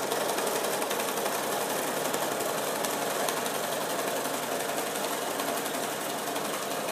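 Bernina sewing machine running steadily at speed while free-motion quilting, a fast, even run of needle strokes.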